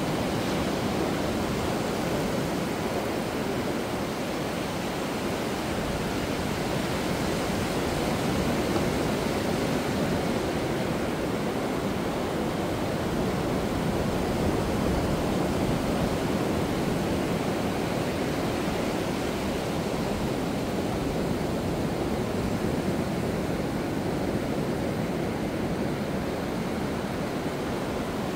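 Ocean surf breaking and washing up onto a sandy beach: a steady rush of water with slight swells in loudness.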